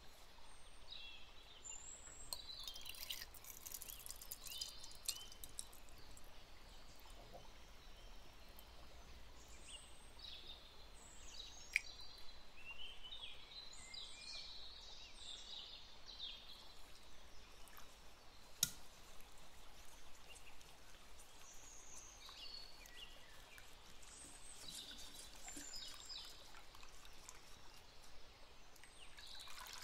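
Quiet food-preparation sounds. Milk pours into a plastic measuring jug, then a wire whisk scrapes and stirs a liquid mixture in a stainless-steel saucepan, with two sharp taps along the way.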